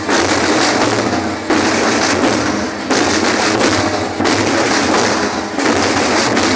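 A school marching percussion band drumming loudly and densely. The phrase repeats about every one and a half seconds.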